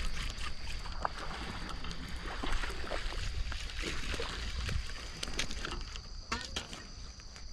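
A steady high-pitched trill of night insects, with scattered clicks and rustling from hands handling a fishing rod, reel and line.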